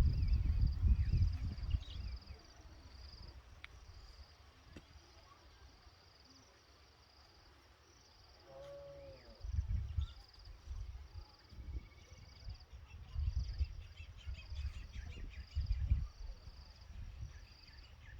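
An insect chirping steadily in short high pulses, about one and a half a second, over low gusty rumbles; a brief pitched call sounds about halfway through.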